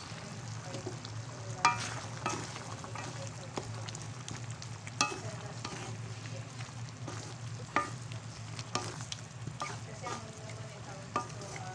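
A spatula stirs a pork-and-vegetable stew in a metal pan over the heat, scraping through the simmering, sizzling sauce. About six sharp knocks on the pan ring briefly.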